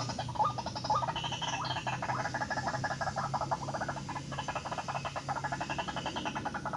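White-breasted waterhen calling: a rapid, rattling run of croaking notes, with short rising notes about twice a second in the first second. A low steady hum lies under the calls.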